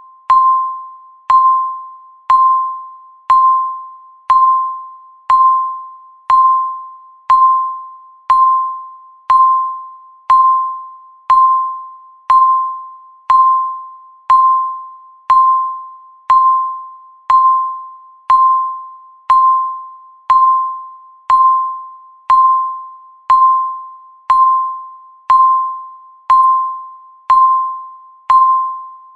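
Countdown timer's ticking sound effect, one short pitched tick each second, each ringing briefly and fading before the next.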